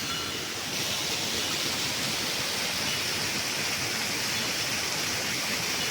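Rushing water: a steady, even rush of noise that grows louder and brighter about a second in, then holds.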